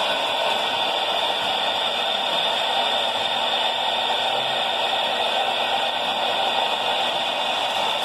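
Toy electric trains running on three-rail O-gauge track: a steady, even hiss and whir, with no separate chuffs or knocks standing out.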